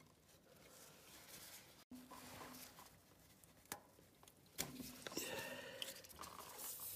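Faint handling sounds of gloved hands working a rubber fuel hose off a small plastic inline fuel filter: light clicks and rubbing, busier about halfway through.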